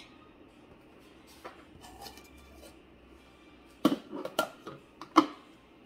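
Thermomix TM6 lid being lifted off the stainless mixing bowl and handled: a few faint clicks, then a quick run of sharp plastic-on-metal clacks and knocks about four seconds in, the last one the loudest.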